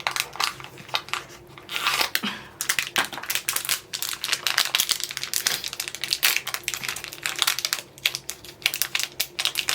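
Packaging of a Loungefly mystery pin box being opened by hand: irregular crinkling and tearing of the wrapping throughout.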